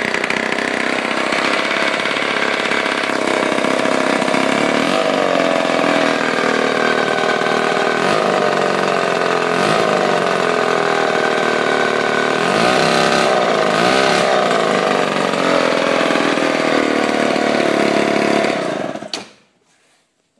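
1949 Lombard chainsaw's Homelite-built two-stroke engine running on its first start after a full overhaul, with no bar or chain fitted. It runs steadily, and the throttle is blipped up and back down several times. The engine stops near the end. It runs quite well.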